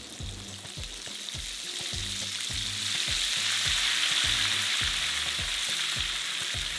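Breaded chicken pieces deep-frying in a basket of hot oil: a steady sizzle that swells a little louder around the middle.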